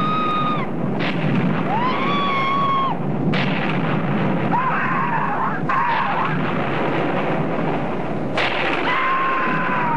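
Heavy, continuous rumbling of the ground splitting open, as in an earthquake, with people screaming over it in several long, wailing cries about a second each.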